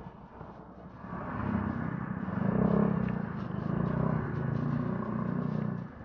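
Motor scooter engine heard from the rider's seat, growing louder about a second in and then running steadily, dropping off just before the end.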